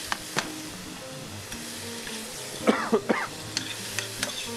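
Strips of beef and onion sizzling in a frying pan as they are stirred, a metal spoon clicking against the pan twice early on. About three seconds in there is a brief louder sound with sliding pitch.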